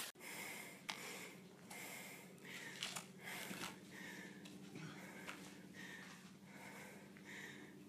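Heavy, rhythmic panting of a person climbing a steep boulder slope, about one breath every three-quarters of a second, with a few sharp clicks.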